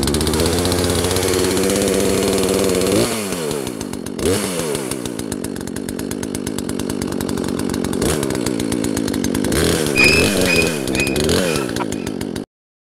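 Poulan Pro two-stroke chainsaw running, its engine pitch dropping and rising again several times as it is revved. It cuts off suddenly near the end.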